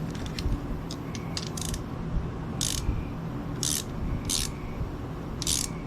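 Hand ratchet clicking in a series of short strokes, the louder ones about a second apart, as a bolt is worked into chased threads that still won't take it, over a steady fan hum.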